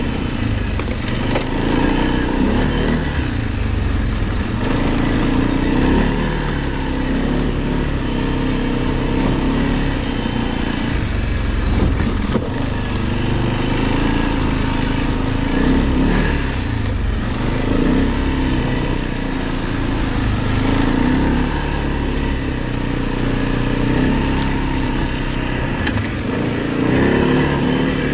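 Arctic Cat 700 ATV engine under way on a trail, its pitch rising and falling every few seconds as the throttle is opened and let off. It runs over a steady hiss of tyre and trail noise.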